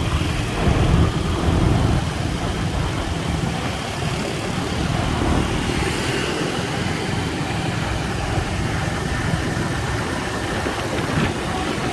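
Motorbike engine running steadily, a continuous low rumble under an even hiss.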